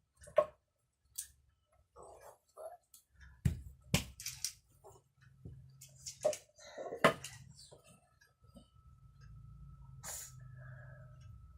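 Wooden toy blocks being handled, with scattered knocks and sharp clacks at irregular intervals and soft rustling between them. A faint steady high tone sits underneath from about two-thirds of the way through.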